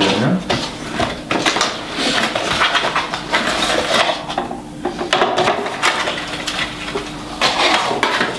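Packaging being opened and handled: a run of irregular rustles, scrapes and light knocks as a cardboard box is opened from the top and its contents pulled out.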